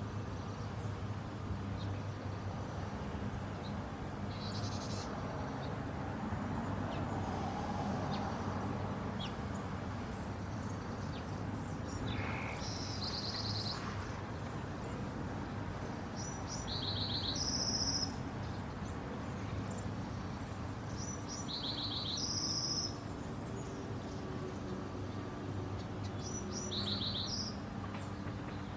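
Songbird singing outdoors: a short, high, trilled phrase repeated about every five seconds, over a steady low background hum.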